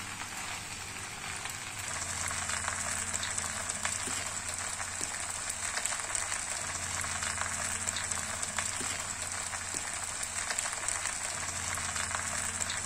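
Spiced egg macaroni frying in a pan: a steady sizzle with many small crackles.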